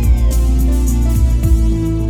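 Background music: electronic track with a steady beat and deep bass under sustained notes.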